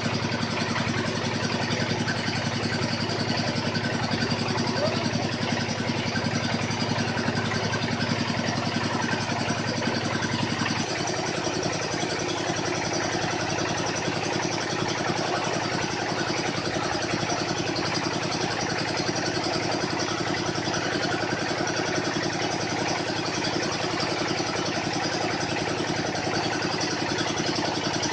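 Engine of a water-well drilling machine running steadily; its note changes about eleven seconds in, as the engine's speed or load shifts.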